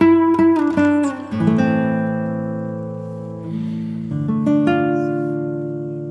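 Background music on acoustic guitar: a quick run of plucked notes, then notes left to ring, with fresh ones struck near the end.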